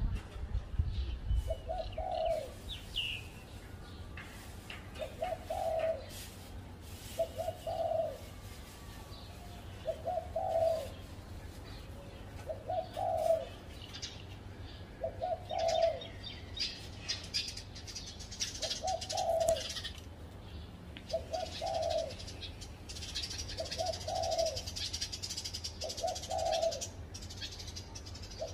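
Spotted dove cooing: short coo phrases repeated evenly about every two and a half seconds. Small birds chirp faintly and high-pitched in the background, mostly in the second half.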